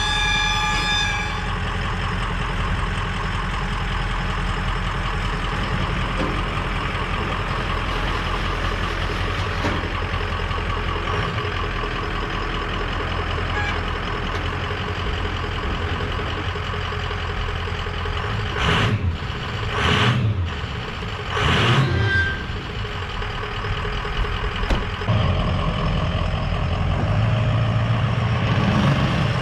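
Truck engine running steadily under a constant drone. A high-pitched tone stops about a second in, three short bursts of noise come about two-thirds of the way through, and near the end it settles into a steadier low hum.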